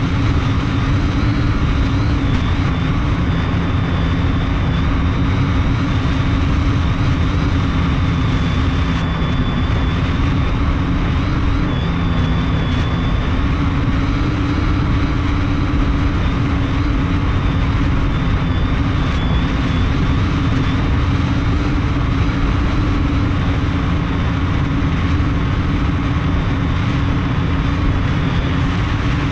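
Multirotor drone's electric motors and propellers humming steadily in flight, heard from the camera on board, with a higher whine over the hum and a dense low rumble beneath.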